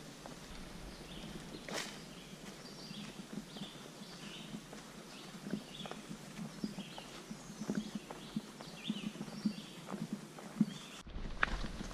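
Footsteps of a hiker on a leaf-littered dirt trail: a steady tread of soft thumps, about two steps a second. Short high chirps of small birds repeat over them.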